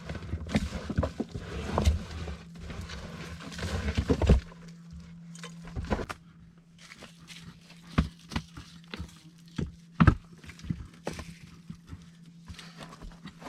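Wooden knocks and thuds from logs being handled during log-wall building. A busy stretch of scraping and thumping comes first, then single sharp knocks every second or two.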